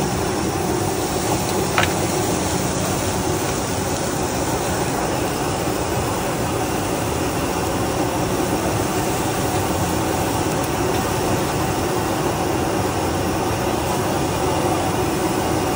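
A steady, even roar of noise with no letup, and one sharp click about two seconds in.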